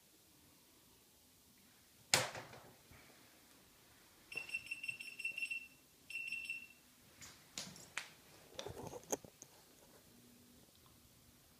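House mouse squeaking in two bursts of a high-pitched, fluttering squeal, the distress call of a mouse caught by a cat. A sharp knock comes before it, and scattered knocks and scuffles on a wooden floor follow.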